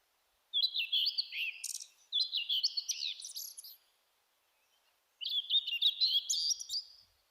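Bird chirping and twittering, high-pitched, in three bursts of quick notes with silent gaps between them.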